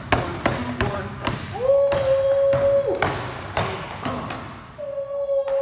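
Basketball being dribbled on an indoor court floor, a run of quick bounces about two to three a second. Twice, a steady held tone lasting a little over a second sounds over it.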